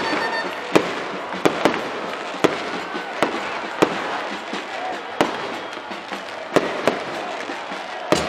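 Firecrackers going off in a celebration, about a dozen sharp bangs at uneven intervals, over the steady noise of a cheering stadium crowd.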